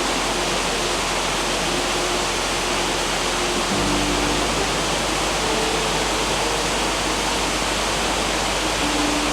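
Waterfall rushing, a steady roar of falling water, with faint held tones of music underneath that shift pitch a few times.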